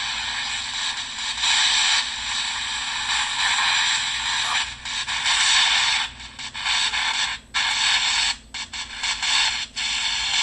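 White noise played by a spirit-communication app: a steady, bright static hiss that cuts out briefly several times in the second half.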